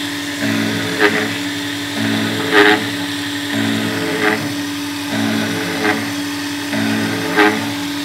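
Self-built CNC mill cutting aluminium with a circular high-speed milling path: the spindle gives a steady hum, and a brief louder burst of cutting noise comes about every one and a half seconds as the cutter sweeps round into the metal.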